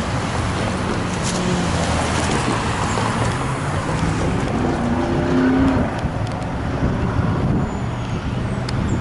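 Road traffic driving past, with engines rising in pitch as vehicles pull away, loudest a little past halfway.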